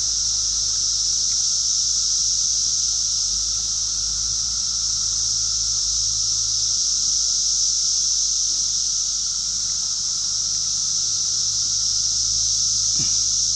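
A steady, high-pitched insect chorus drones without a break, with a low steady rumble beneath it.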